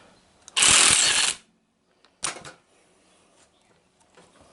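Impact wrench hammering on the flywheel puller's bolt in a loud burst of just under a second, then a second, shorter burst: the puller being driven to pop the flywheel off the GY6 engine's crankshaft.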